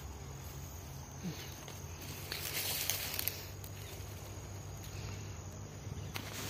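Faint rustling of leaves and plant stems being handled, swelling for about a second around two and a half seconds in, with a few sharp crackles near the end, over a steady low hum.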